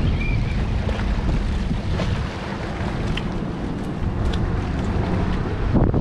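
Wind buffeting the microphone over waves washing against jetty rocks, with a short thump just before the end.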